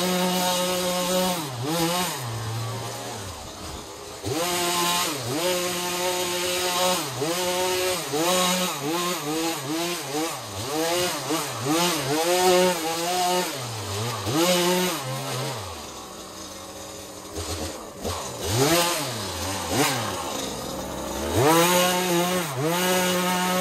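A small two-stroke engine of a garden power tool, run at high revs and repeatedly easing off and revving back up every second or two, with a longer dip in the middle.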